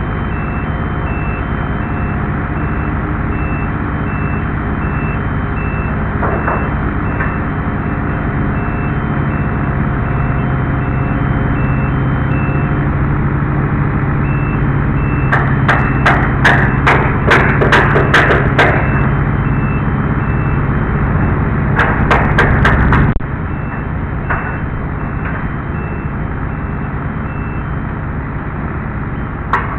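Tracked Skyjack scissor lift's engine running with its warning beeper pulsing about once a second. The engine picks up about ten seconds in, bursts of sharp clicks and knocks come in the middle, and the engine drops back suddenly a little after twenty seconds, with the beeping starting again.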